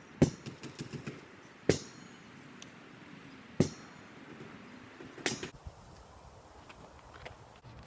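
Lacrosse shots at a goal: four sharp knocks, about one every one and a half to two seconds, each followed by a few smaller clicks as the ball strikes and rattles off the goal and net.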